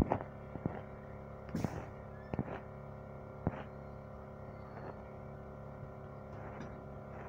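Double-decker bus engine idling with a steady multi-toned hum, heard inside the passenger cabin; the bus has a burst exhaust. Several sharp knocks and rattles come in the first three and a half seconds, then only the steady hum.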